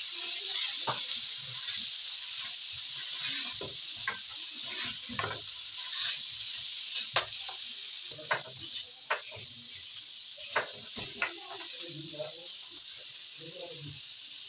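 Marinated beef sizzling in a hot frying pan as it is stirred, a steady hiss broken by scattered sharp pops and clicks.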